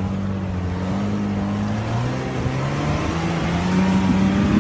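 Jeep Cherokee XJ's engine pulling under load as it crawls up a rock ledge, its pitch rising gradually as the revs climb.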